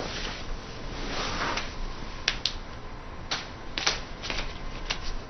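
A soft rustle, then a handful of sharp, irregular clicks and taps, like small objects being handled.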